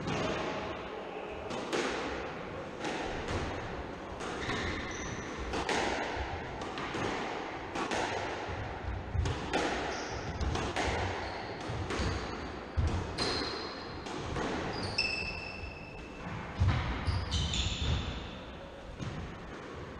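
Squash rally: the ball cracks off rackets and the court walls about once a second, echoing in the court, with short high squeaks from court shoes on the wooden floor in the second half.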